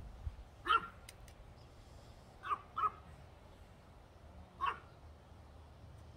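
Dog barking: four short barks, one about a second in, a quick pair a couple of seconds later, and one more after that.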